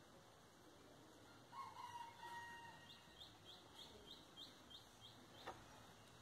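Faint background rooster crowing once in a drawn-out call, followed by a bird's run of about nine quick high chirps. A single light click near the end.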